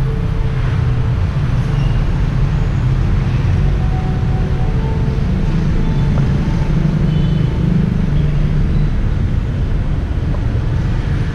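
Steady rumble of city street traffic, cars and motorbikes passing, with a few faint short tones above it.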